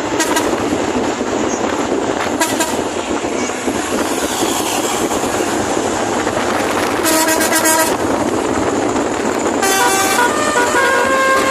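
A basuri "telolet" musical air horn on a vehicle: a chord of horn tones sounds for about a second, seven seconds in, then from about ten seconds the horn steps through a short tune of changing notes. Steady loud vehicle noise runs underneath.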